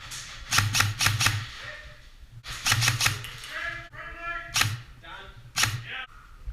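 Airsoft guns firing in quick bursts of sharp snapping shots, two rapid groups of about four shots, then single shots near the end. A voice calls out briefly in the middle.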